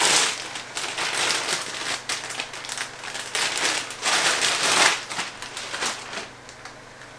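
Clear plastic packaging bag crinkling and rustling as it is pulled off a new mountain bike suspension fork. The crackle is loudest at the start and again about four to five seconds in, then dies away near the end.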